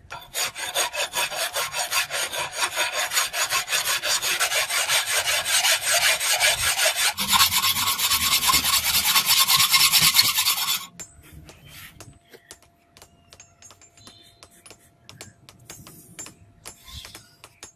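Hand file rasping back and forth along the edge of a steel blade clamped in a bench vise, in quick, even strokes. The filing stops abruptly about eleven seconds in, leaving only faint scratches and taps.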